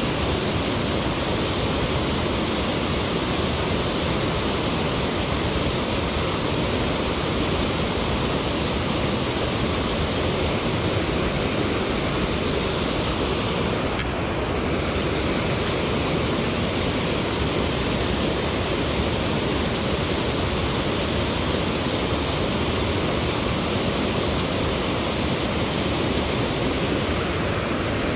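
Steady rush of water spilling over a concrete weir into a shallow stream.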